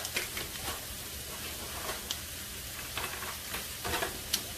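Sliced mushrooms, green bell pepper and onion sautéing in butter in a nonstick skillet: a steady frying sizzle with occasional small crackles.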